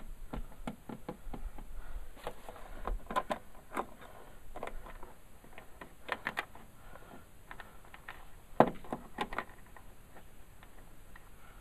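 Light clicks and taps of a #2 Phillips screwdriver working the screws out of a Jeep Wrangler JK half door's plastic interior panel, with fingers handling the screws and plastic. There is one sharper knock about two-thirds of the way through.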